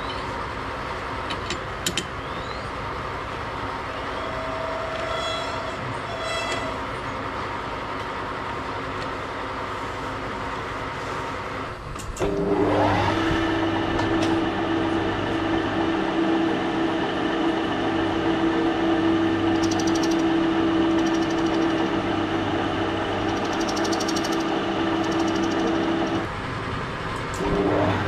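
Metal lathe in a machine shop: a steady hum at first, then about twelve seconds in the spindle starts and the lathe runs louder with a steady, even pitched whine. Near the end the sound drops for about a second, then picks up again.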